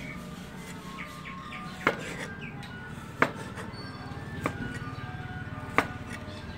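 Large kitchen knife chopping raw pork on a wooden cutting board: four sharp chops, about one every second and a half.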